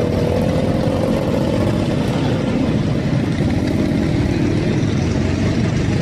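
Several two-stroke Yamaha RX-series motorcycles running together at low speed as they ride off, a steady din of engines.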